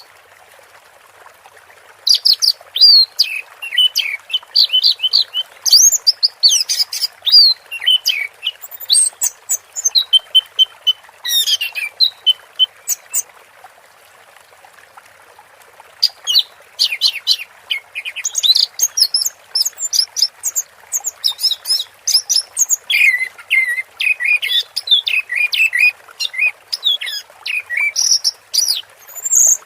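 Orange-headed thrush singing: rapid runs of varied high whistles and chattering notes, falling silent for a few seconds about halfway through.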